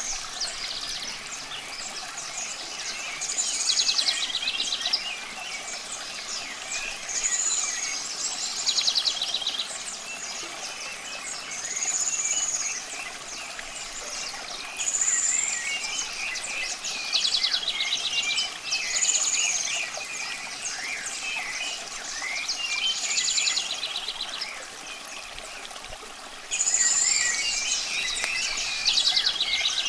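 Several wild birds singing at once: short high arched whistles repeat every few seconds, mixed with fast ticking trills and scattered chirps. A steady hiss of running water sits underneath.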